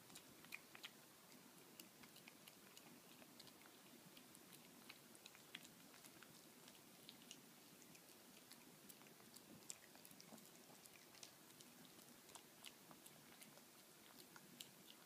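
Chihuahua chewing and crunching on a treat: faint, irregular small clicks of teeth and food, several a second.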